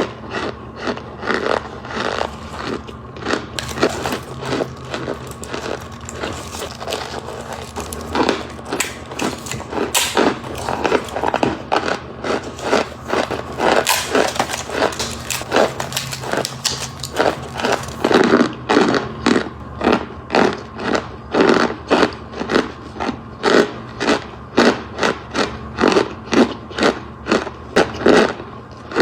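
Freeze-dried marshmallows being crushed in a dense run of crisp, brittle crunches. In the last third the crunches settle into a steadier rhythm, about one and a half to two a second.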